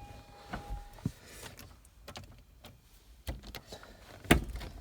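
Scattered clicks and knocks from hands working at the controls in a car cab, with a steady high tone that stops about a second in and a louder knock near the end.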